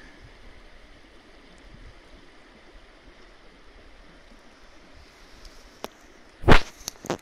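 Steady outdoor background hiss, with a loud, brief crackle about six and a half seconds in and a shorter one just before the end.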